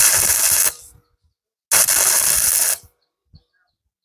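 Stick-welding arc from an E6013 electrode, struck twice in bursts of about a second each to lay tack welds joining rebar to a steel plate, with a faint click near the end.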